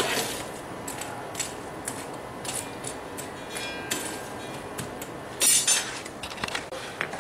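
A forge running with a steady rush while a thin steel froe blank heats to forge-welding temperature. Scattered light metal clinks, and a brief louder clatter of metal about five and a half seconds in.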